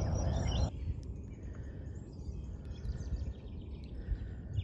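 Outdoor ambience: a louder rush of noise with high insect buzzing that cuts off abruptly under a second in, then faint scattered bird chirps over a steady low rumble.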